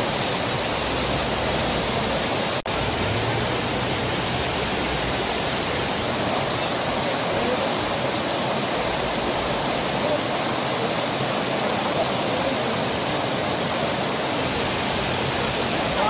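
Steady rush of a snowmelt-fed mountain waterfall and its stream. The level dips for an instant about two and a half seconds in.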